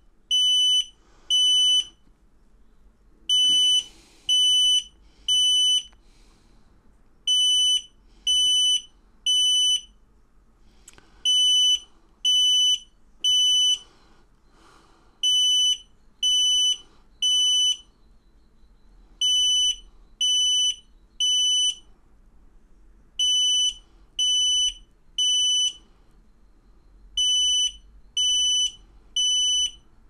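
X-Sense XS01-WT Wi-Fi smoke alarm sounding its alarm: loud, high beeps in groups of three, about one a second, each group followed by a pause of about a second and a half. This is the standard three-beep evacuation pattern of a smoke alarm signalling detected smoke.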